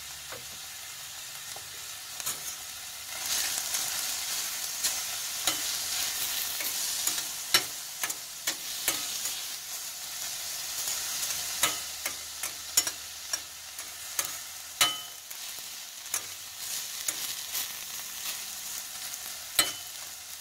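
Diced onions and tomatoes sizzling in a stainless steel skillet on a butane camp stove, stirred with a metal utensil that scrapes and clinks against the pan. The sizzle grows louder about three seconds in, and sharp clinks come every second or so, a few ringing briefly.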